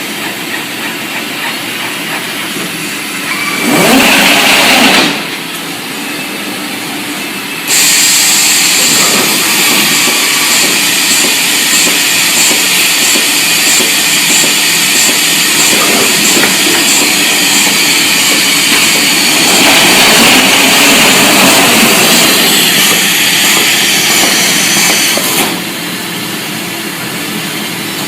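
Trumpf T5000 automated sheet-metal machine running loudly. There is a brief loud burst about four seconds in. From about eight seconds in it runs louder, with a fast repeating high ticking, and it drops back near the end.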